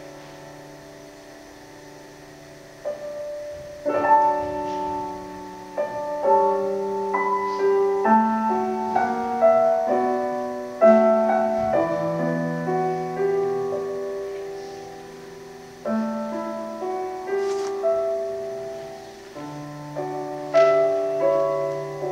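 Solo piano playing a slow, gentle piece: a few soft notes at first, then fuller chords from about four seconds in, each struck and left to ring and fade.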